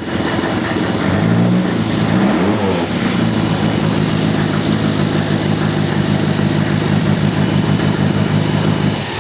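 Formula Ford race car's four-cylinder Ford Kent engine running steadily, with a quick rise and fall in revs about two seconds in.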